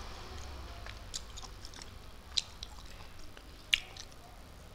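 A person chewing food close to the microphone, with wet mouth smacks and clicks every second or so, three sharper than the rest.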